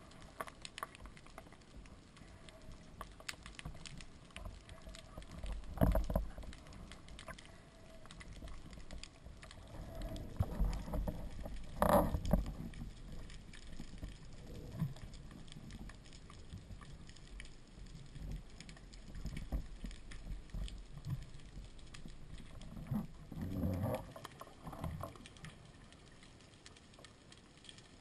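Underwater handling noise from a camera mounted on a speargun: scattered sharp clicks and muffled knocks, with louder thumps about six seconds in, about twelve seconds in, and a cluster a little before the end.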